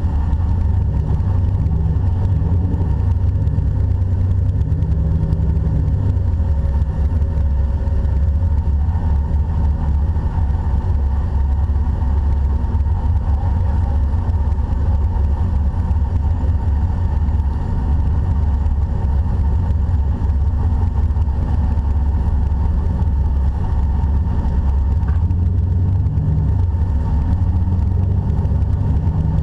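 Off-road Jeep's engine running steadily at low revs, a continuous low rumble whose pitch rises and falls gently.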